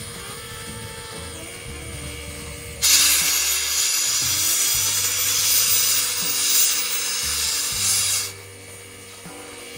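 Steam locomotive blowing off steam: a loud hiss starts suddenly about three seconds in and cuts off sharply some five seconds later.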